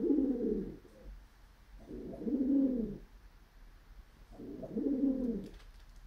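Male pigeon cooing in courtship display: three low coos of a bit over a second each, evenly spaced, each falling in pitch at the end.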